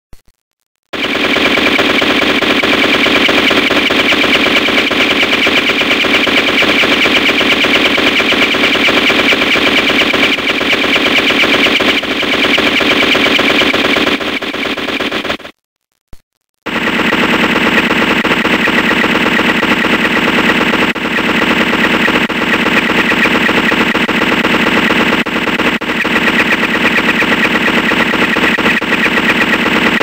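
Sound-effect gunfire: sustained rapid automatic fire in two long bursts, each about fourteen seconds, with a short break about halfway.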